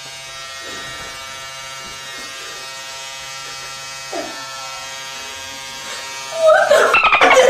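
Electric hair clippers buzzing steadily at a man's hairline while cutting a lineup. Near the end a loud voice cuts in over the buzz.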